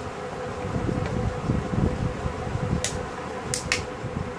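Plastic TV remote case being pried open at its side clips: handling scrapes and three sharp plastic clicks about three seconds in as the latches let go, over a steady hum.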